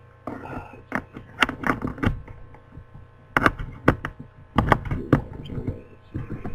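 Irregular clicks and knocks of hands handling a plastic hard drive enclosure and its cables on a wooden desk, over a faint steady electrical hum.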